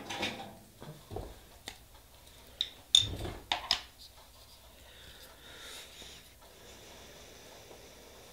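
A few light clicks and knocks of small nail-stamping tools and a polish bottle being picked up and set down on a tabletop, the loudest about three seconds in, then only a faint steady hiss.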